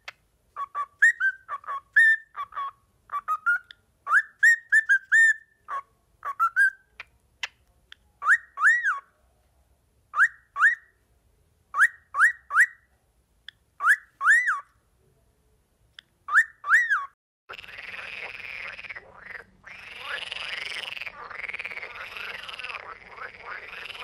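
Budgerigars chirping: short, arched whistled calls, singly and in quick clusters of two to four. About two-thirds of the way through, a continuous, denser scratchy chatter takes over.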